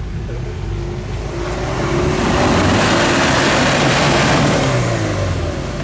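Off-road 4x4 engine revving under load, its pitch rising over the first couple of seconds. A loud rushing noise builds about two seconds in and fades near the end.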